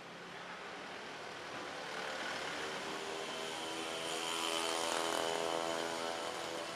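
Street traffic noise with a motor vehicle's engine passing, growing louder to a peak about five seconds in and then easing off.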